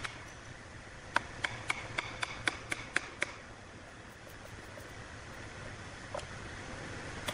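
A wood chisel struck in quick succession as it cuts into a hardwood block: about nine sharp knocks, about four a second, starting about a second in and stopping after about two seconds, followed by a pause with a faint knock.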